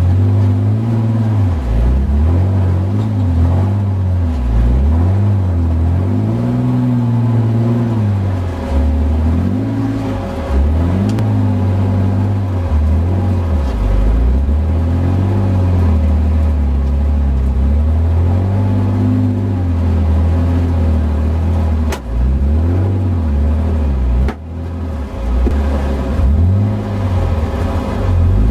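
Off-road 4x4's engine heard from inside the cab, its revs rising and falling again and again as it is driven over rough ground.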